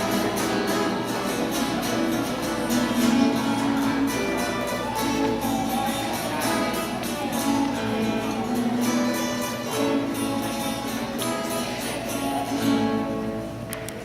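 Acoustic guitar (violão) strummed and plucked in a steady rhythm, playing a moda de viola, fading away near the end.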